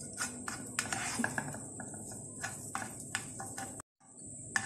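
Butter melting and sizzling in a hot frying pan, with irregular small crackles and light scrapes and taps of a spatula spreading it. The sound cuts out briefly about four seconds in.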